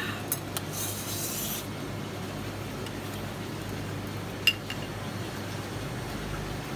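Small ceramic dipping-sauce bowls handled on a tabletop: a few light clinks, a short scrape about a second in, and one sharper clink about four and a half seconds in, over a steady low hum.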